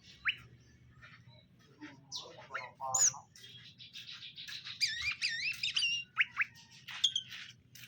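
Cucak ijo (green leafbirds) calling: scattered sharp chirps and squawks, then about five seconds in a quick warbling run of sliding whistled notes.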